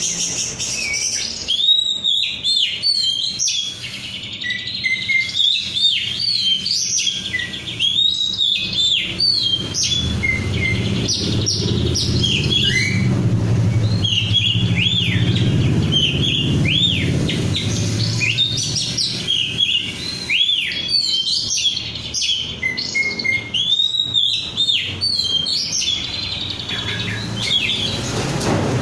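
Oriental magpie-robin (kacer) singing continuously: a rapid, varied run of arching whistled notes and chirps. A low rumble sits beneath the song through the middle.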